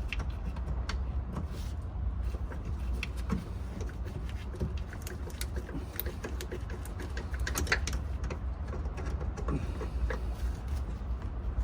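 Scattered small clicks and taps of hand work on plastic clips, screws and fittings in a car's engine bay, over a steady low rumble.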